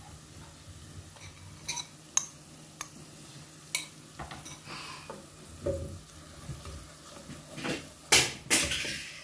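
A wooden spoon stirring ground spices into fried onions in a metal pot, scraping and knocking against the pot over a light sizzle of oil. Two louder knocks come near the end.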